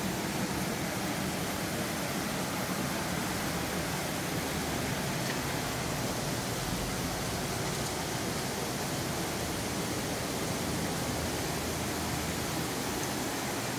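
Steady rushing of water as a spout of spring water pours over rocks into a stone-walled pool.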